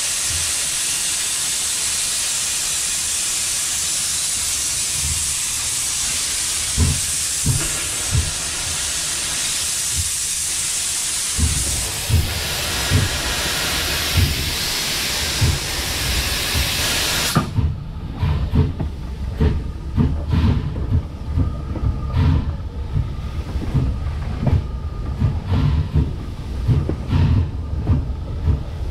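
Steam locomotive under way: a loud steady hiss of steam runs for a little over half the time and then cuts off suddenly. After that, what is left is the wheels knocking irregularly over the rail joints.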